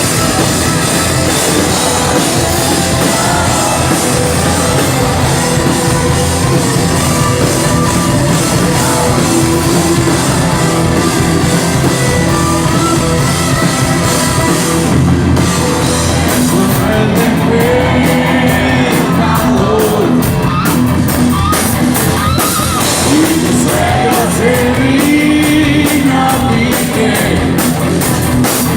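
Rock band playing live: loud electric guitars, bass and drums, with a sung vocal line over them in the second half.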